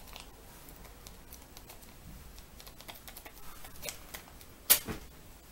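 Wax strip on the upper lip making faint crinkling clicks as long fingernails press and rub it down, then one sharp, quick rip near the end as the strip is pulled off against the hair.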